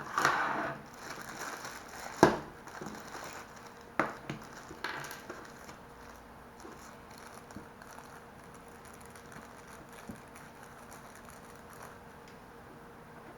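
Handling noise: a brief crinkling rustle, then a few sharp clicks, the loudest about two seconds in and another about four seconds in, followed by faint scattered ticks.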